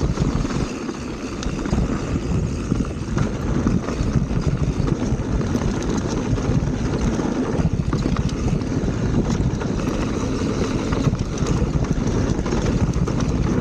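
Wind rushing over an action camera's microphone during a fast mountain-bike descent, with a steady low rumble from the tyres and bike on the dirt trail.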